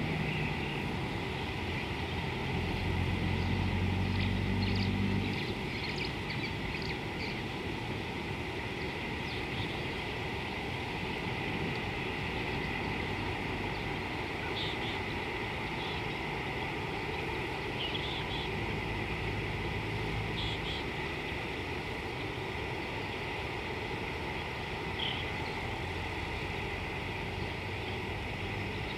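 Outdoor ambience with a steady hiss, a distant engine drone in the first five seconds that comes back faintly later, and a few brief high chirps.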